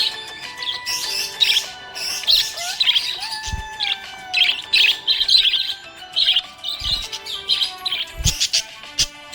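Budgerigar chirping and warbling in quick, repeated bursts, over background music with held notes and an occasional low beat.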